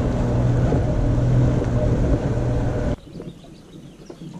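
A boat motor running steadily with a low, even drone, which stops abruptly about three seconds in. After that, quiet open-air ambience with faint bird chirps.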